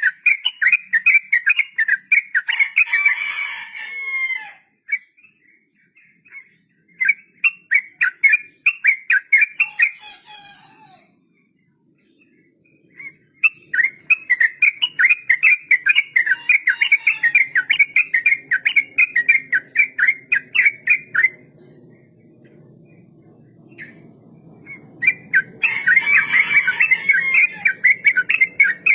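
Yellow-vented bulbul (trucuk) singing its long 'ropel' song: four long runs of very fast, rattling repeated notes with short pauses between them. A faint low hum comes in about halfway through.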